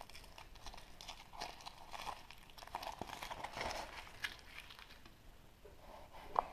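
Foil wrapper of a chocolate surprise egg being unwrapped by hand, with crinkling and crackling for the first few seconds. A single sharp click comes near the end.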